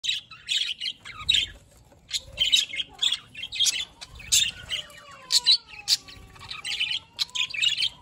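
A flock of budgerigars chattering: many short, high chirps in quick succession.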